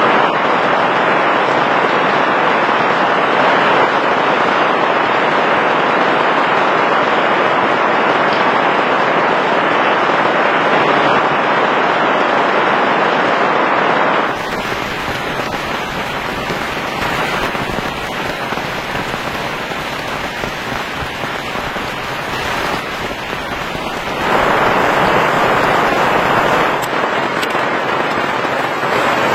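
Heavy rain falling, a steady hiss that drops abruptly in level about halfway through and swells again near the end.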